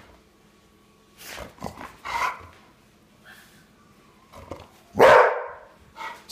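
Pit bull barking several times with pauses between, the loudest bark about five seconds in.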